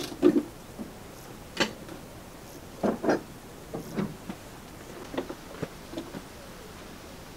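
Hand tools and steel parts of a Land Rover Series 3's steering gear clinking and knocking during dismantling: about eight short, separate metallic knocks at irregular intervals, two close together about three seconds in.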